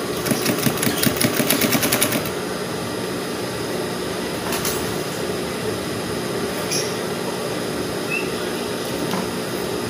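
Sewing machine stitching a short run of rapid, even needle strokes, about eight a second, that stops after about two seconds. A steady hum carries on afterwards, with a couple of light clicks.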